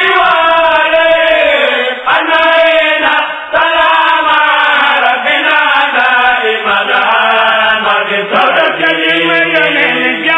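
Male chanting of an Arabic devotional poem in praise of the Prophet, one long melodic line sung on without a break.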